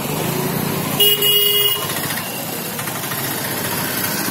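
A vehicle horn sounds once, a short blast of under a second, about a second in, over steady street traffic and engine noise.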